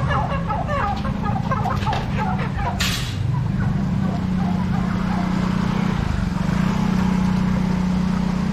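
Live-poultry stall ambience: many short, scattered clucks and quacks from caged chickens and ducks for the first three seconds, a brief hiss about three seconds in, then a steady low machine hum over a low rumble.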